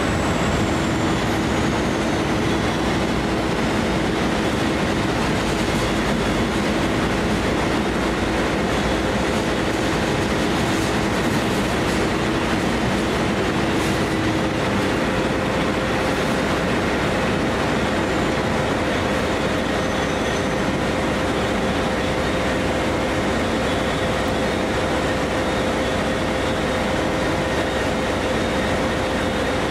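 V/Line N Class diesel-electric locomotive and train running, a loud steady engine and rail noise. A steady tone in it steps up in pitch about halfway through.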